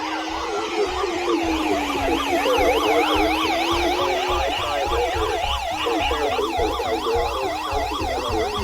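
Siren sounding a fast yelp, its pitch rising and falling about three times a second. A slower, steadier wailing tone runs under it and fades out a little before halfway.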